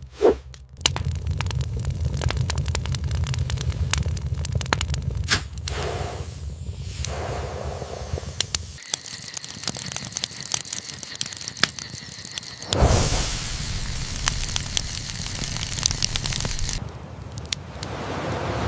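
Campfire crackling and popping with many sharp snaps, over a low rumble that drops out about nine seconds in.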